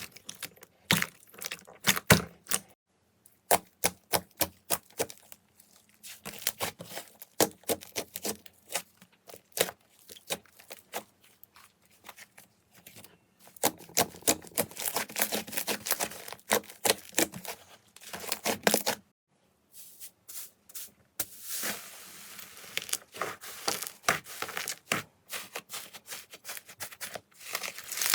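Slime being squeezed, pressed and poked by hand, making fast runs of crackling, clicking pops, in several stretches broken by brief silences.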